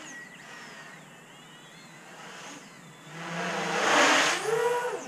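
MaydayQuadWorks Patriot X, an 800 mm X-Class racing quadcopter on a 12S pack, flying: its motors and propellers whine, sliding up and down in pitch. About three seconds in it passes close, swelling into a loud rush of prop noise that peaks about four seconds in and then falls away.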